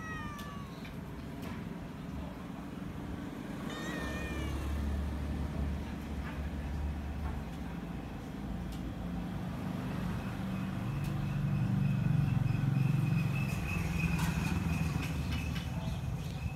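Domestic tabby cat meowing: a falling meow at the start and another about four seconds in, over a low rumble that grows louder later on.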